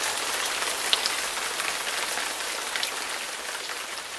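Steady rain falling, a dense hiss of drops flecked with tiny ticks.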